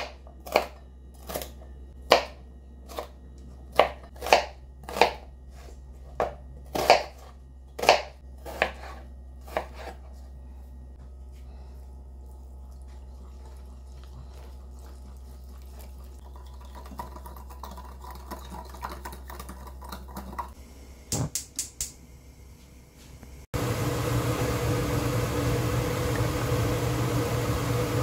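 A knife chopping a green bell pepper on a plastic cutting board, about a dozen sharp strokes over the first ten seconds, then a quieter stretch of soft whisking of batter in a bowl. A few clicks follow, and about 23 seconds in the steady sizzle of chicken deep-frying in hot oil starts suddenly.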